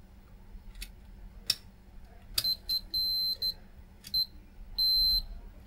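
Multimeter continuity buzzer beeping as the probe touches pins that are connected to ground: a couple of faint clicks first, then from about halfway a few short beeps and two longer held beeps of one high tone.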